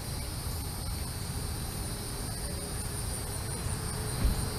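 Evening insect chorus, a steady high trilling, over a low rumble of wind on the microphone, with a brief low thump near the end.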